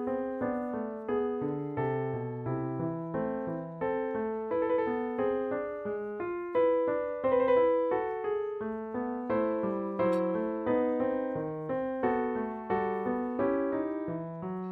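Background piano music: a steady stream of notes and chords, each struck and then fading.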